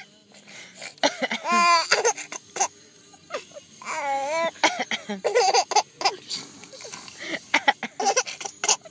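A young child giggling in high, rising-and-falling squeals, with short coughs in between.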